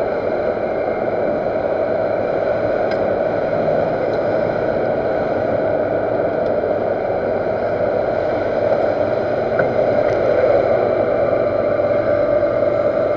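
Universal lathe running steadily with the spindle turning at 500 rpm: an even mechanical hum with a constant tone over a noisy hiss.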